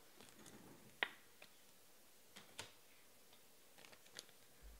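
Faint clicks and taps of trading cards being handled and set down, a few separate ticks with the sharpest about a second in.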